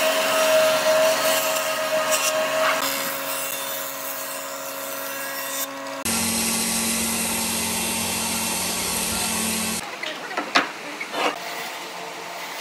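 Woodworking power tools running in a string of short cuts, each a steady machine whine that changes abruptly to another. Near the end there are a few sharp knocks on wood.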